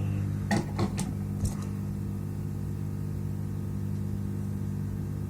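Steady low electrical hum, with a few light clicks or taps about half a second to a second and a half in.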